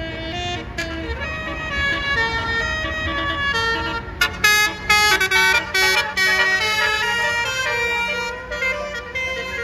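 A bus's basuri musical horn playing a telolet melody: loud horn notes stepping quickly from pitch to pitch, often several at once, over the low rumble of the bus engine.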